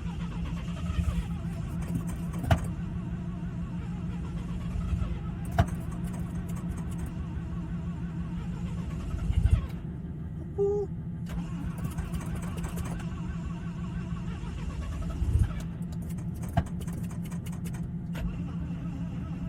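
Cold start attempt on a rotary-engined Mazda pickup: the engine is cranked and nearly catches but does not stay running, over a steady engine drone. Several sharp clicks and knocks sound along the way.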